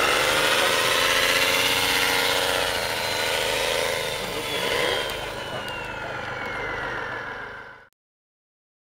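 Radio-controlled scale truck's motor and drivetrain running under load as it crawls up a rocky slope, with a whine that falls in pitch over the second half. The sound cuts off suddenly near the end.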